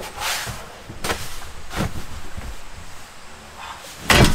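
Handling of folding camp gear: a swish of fabric, then two knocks as the frame is set down, and a louder thump near the end.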